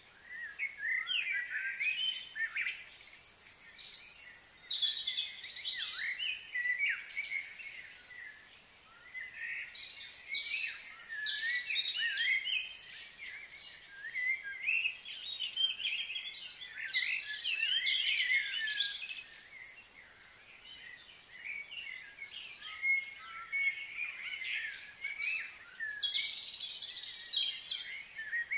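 Small birds chirping and singing, short high calls overlapping in busy bouts that come and go every few seconds.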